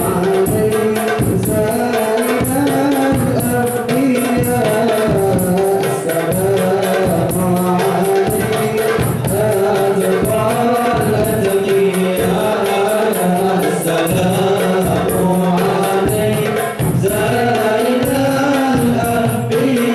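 A male group sings an Islamic qasidah into microphones. Hand-beaten frame drums, a large drum and a jingling tambourine play with them in a steady rhythm.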